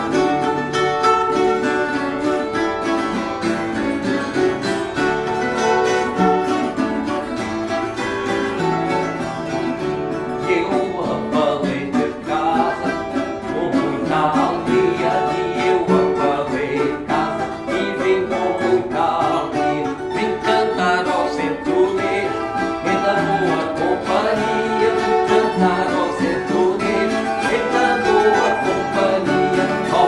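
A small ensemble of plucked strings playing together: Portuguese guitar, classical guitar and two violas. A man sings over the instruments from about ten seconds in.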